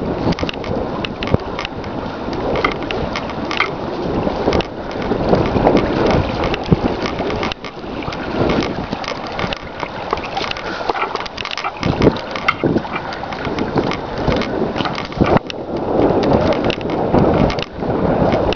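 Wind buffeting the camera's microphone: an uneven rushing that swells and eases, with many small crackles and knocks through it.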